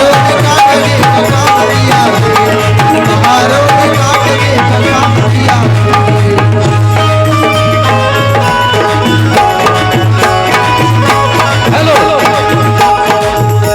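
Instrumental interlude of a live Bhimgeet: tabla with a melody instrument playing held notes over a steady low hum.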